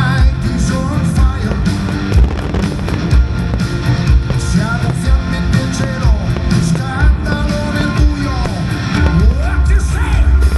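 Loud music with a singing voice over a heavy bass beat, played as the accompaniment to a fireworks display.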